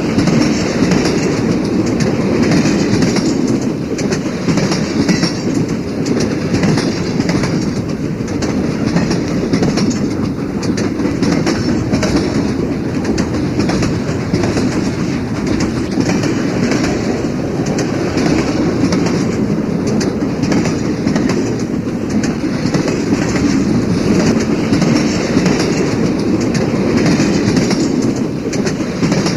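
Train wheels clattering over rail joints again and again over the constant low rumble of a moving train.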